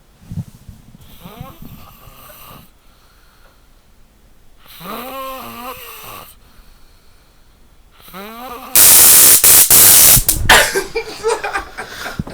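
A man snoring, with drawn-out snores that rise and fall in pitch about every three seconds. About nine seconds in, a sudden, extremely loud noise blasts for about two seconds in a few short bursts, far louder than the snoring.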